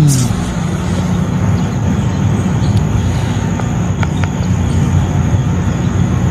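A steady low engine rumble, like a vehicle or aircraft running, with a brief falling tone at the very start.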